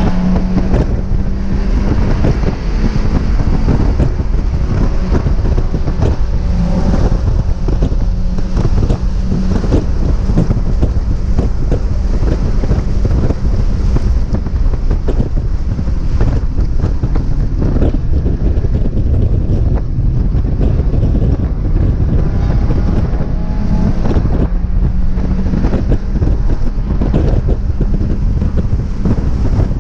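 1999 Mazda Miata's four-cylinder engine running hard at a steady high pitch on a race lap, largely covered by heavy wind buffeting on the microphone; loud, rough audio.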